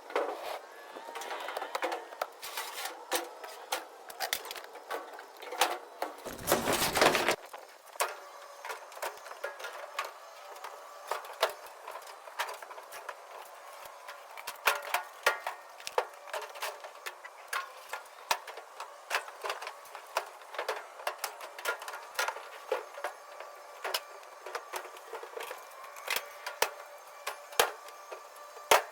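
Irregular knocks, clicks and clatter of household junk being handled and moved, with one louder rush of noise lasting about a second around six seconds in.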